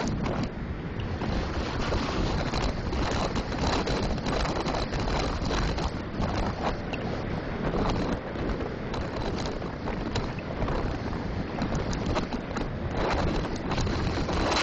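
Wind rushing over the microphone of a bicycle-mounted camera on a fast downhill descent, a continuous gusting roar that swells louder near the end.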